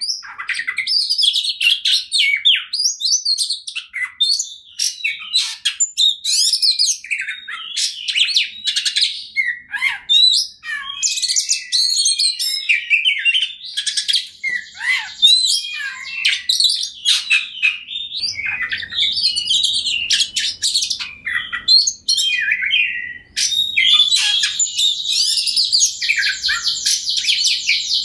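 Oriental magpie-robin singing nonstop: a fast, varied run of whistles, chirps and clicks, turning into a dense high rattling passage near the end.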